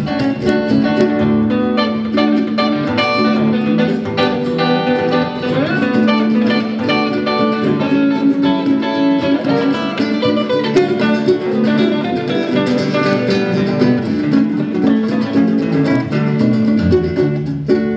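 Seven-string Dean electric guitar playing a lead break of quick picked notes in a country song, over keyboard backing with a held low note.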